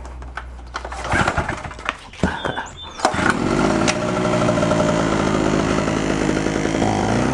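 Harbor Freight Storm Cat 800-watt two-stroke generator being pull-started: a few rough strokes of the recoil pull, then the engine catches about three seconds in and runs steadily. It starts easily because the engine is already warm.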